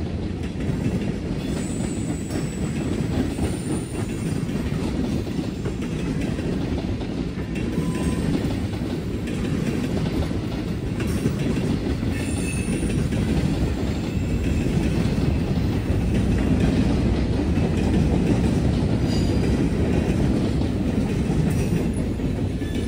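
Norfolk Southern freight train's cars rolling past: a steady rumble with wheel clatter and a few brief, faint high wheel squeals.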